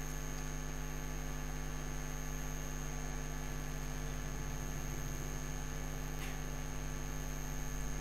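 Steady electrical mains hum in the recording, with a thin high-pitched whine over it.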